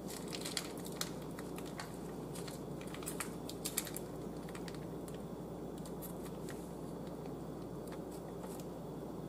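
Faint crinkles and small clicks of a foil cheese-sauce pouch being squeezed out by hand, over a steady low hum; the clicks are more frequent in the first few seconds.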